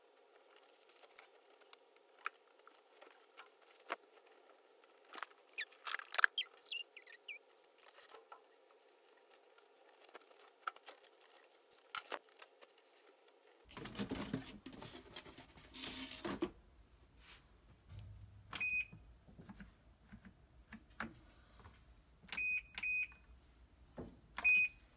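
Clothes rustling and being handled as laundry goes into a top-loading washing machine, then a few short electronic beeps from the washer's control panel as its buttons are pressed to set and start the wash cycle.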